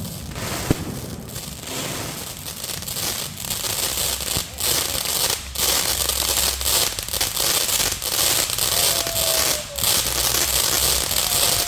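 Fireworks going off: a dense, continuous crackle with many rapid pops, growing louder from about four seconds in.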